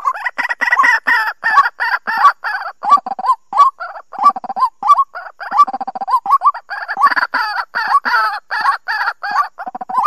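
White-breasted waterhen calling: a fast, unbroken run of short repeated notes, busiest at the start and again in the last few seconds.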